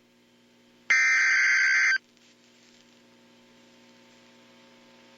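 One burst of Emergency Alert System SAME digital data tones, lasting about a second and starting about a second in. It is the end-of-message code that closes a tornado warning. Afterwards there is only a faint steady hum.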